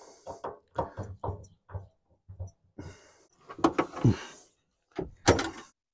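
Clicks, knocks and scraping of a key being forced and twisted in a stuck locking gas cap on a 1971 Chevy Vega, with a few short hisses among them.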